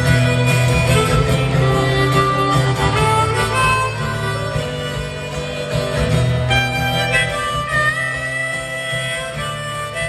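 Harmonica playing an instrumental passage of held and sliding notes over strummed acoustic guitar, in a live concert recording.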